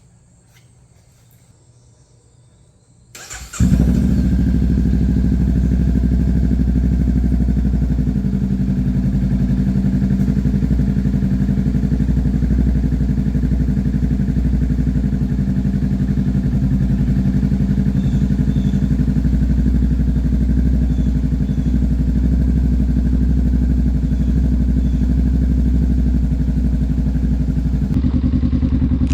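Honda Rebel 500's parallel-twin engine starting about three seconds in, catching at once and then idling steadily through a Vance & Hines exhaust.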